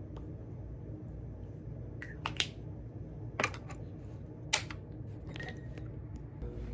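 Several sharp clicks and taps over a steady low hum, the three loudest coming about a second apart in the middle.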